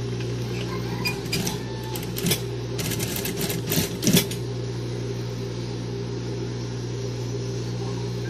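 Industrial sewing machine's motor running with a steady hum while the needle is idle. Between about one and four seconds in come a few short, irregular rustles and clicks.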